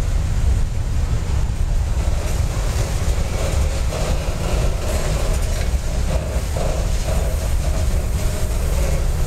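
Freight train cars, covered hoppers and boxcars, rolling past close by: a steady, continuous rumble of steel wheels on the rails.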